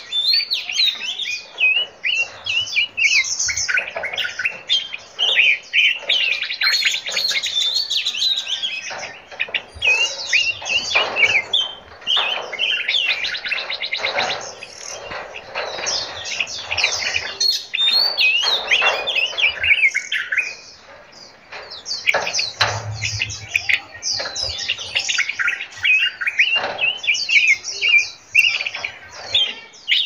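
Several caged songbirds chirping and singing at once, many quick high notes overlapping, with a brief lull about two-thirds of the way through.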